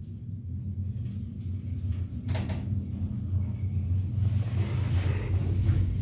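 Tepper passenger lift car travelling upward: a steady low hum that grows louder, a click about two seconds in, and a rising rush of air from about four seconds in.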